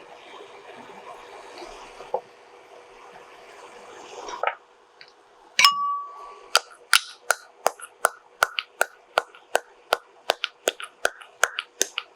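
A steady hiss that cuts off after about four seconds, then a single ringing metal clink. After that a pestle pounds dry ginger in a metal mortar, about three sharp ringing strikes a second.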